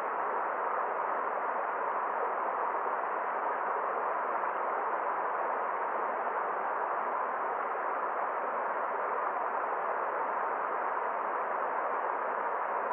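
A forest stream rushing in a steady, even wash of water noise that never swells or breaks.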